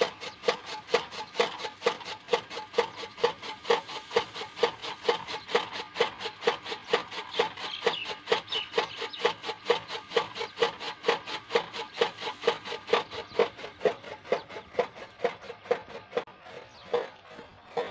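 Chaff cutter chopping fresh green grass fodder: a steady run of sharp cutting strokes, about two and a half a second. Near the end the strokes turn fainter and uneven.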